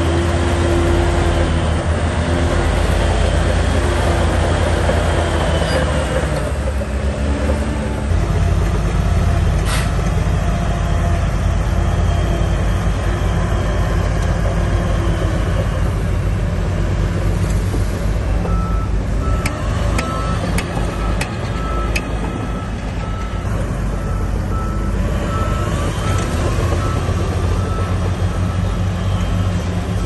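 Heavy diesel engine of earthmoving machinery running under load, its note changing about eight seconds in. A little past halfway a reversing alarm starts beeping at an even pace, with a few sharp metallic clanks around then.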